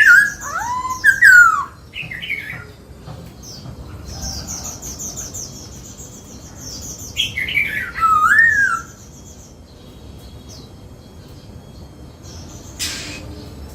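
Black-throated laughingthrush singing loud whistled phrases of sliding, swooping notes, in two bouts: one at the start and one about seven seconds in. Between them come runs of high, rapid chirping notes. A short hiss-like noise sounds near the end.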